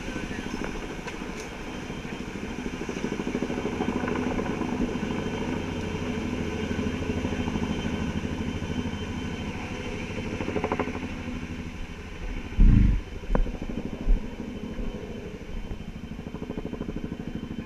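Helicopter rotor beating steadily overhead, a fast even pulsing that hangs in the air while it holds a log for placement. About two-thirds through come a few heavy low thumps.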